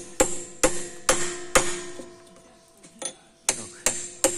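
Hammer blows on a steel chisel held against the rusty brake drum and axle of a Peugeot 403, each sharp metal strike leaving a short ringing tone. Four quick blows, a pause, then three more near the end.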